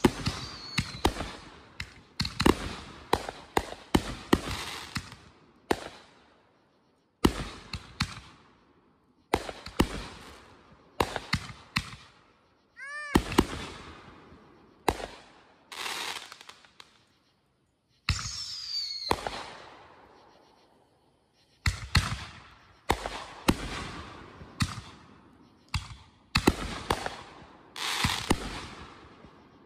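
Consumer fireworks going off in quick succession: sharp bangs, each trailing off, in clusters with brief pauses. Whistles rise and fall among the bangs, one about halfway through.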